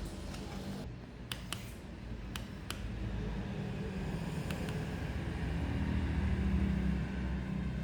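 A handful of sharp, separate clicks of mechanical keyboard keys over a steady low rumble that grows louder near the end.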